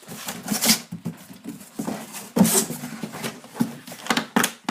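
Plastic foot-spa case and packaging being handled: a few knocks and clatters with rustling in between, about five sharper knocks in all.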